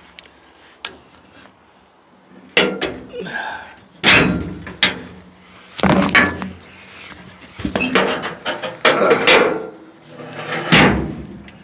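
Steel lid of a pig cooker being lifted open and handled, giving a string of loud metal clanks and knocks, some with a short ring, busiest in the second half.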